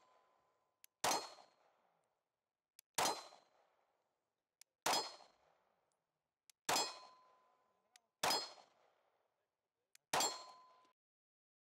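Six pistol shots from a compact carry pistol, slow and evenly paced about two seconds apart. Each shot is followed by the ringing clang of a steel silhouette target being hit.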